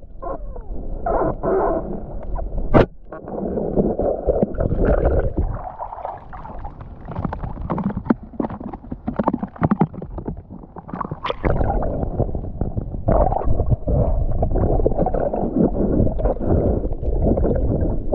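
Muffled sloshing and gurgling of water picked up by a camera in or under the water, with a single sharp click about three seconds in.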